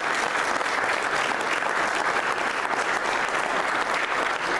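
Applause from a small group of people clapping their hands, steady and sustained.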